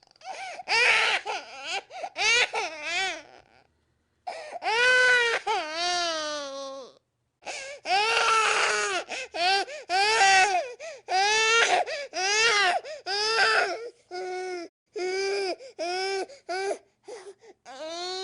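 Baby crying in repeated wailing bouts of a second or two each, with short breaths between them.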